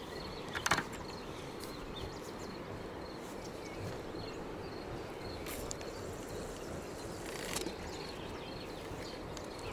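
Open riverbank background: a steady low hiss with faint, evenly repeated high chirping of insects. A sharp click about a second in and two brief swishes later come from the spinning rod and reel as a catfish bottom rig is cast.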